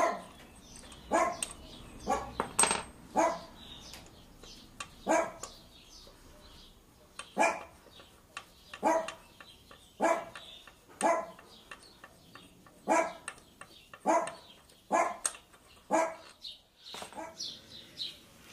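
A dog barking repeatedly: about fifteen single barks, roughly one every second or two, some coming in quick pairs.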